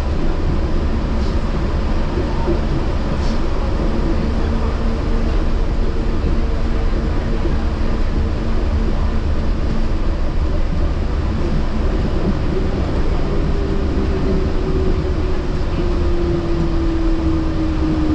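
Yurikamome rubber-tyred automated train running on its concrete guideway: a steady rumble with a thin motor whine from about four seconds in. The whine falls slowly in pitch toward the end as the train slows.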